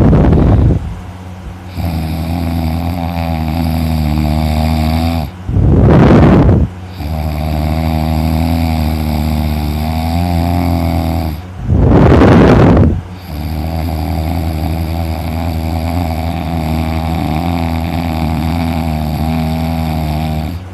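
A man snoring heavily in deep, exhausted sleep: long droning snores broken about every six seconds by a louder, rasping burst of breath.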